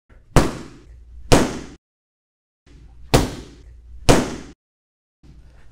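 An Eskrima stick striking a free-standing punching bag: four sharp hits in two pairs, about a second apart. Each pair sets the dull thud of hitting with too much of the stick against the sharp crack of a hit with the tip.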